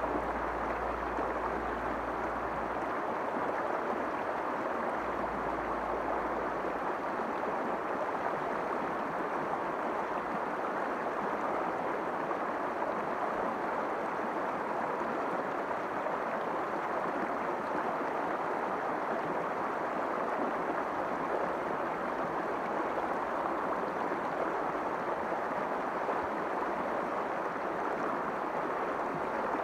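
A shallow stream rushing steadily over rocks in a riffle, an even, unbroken water noise.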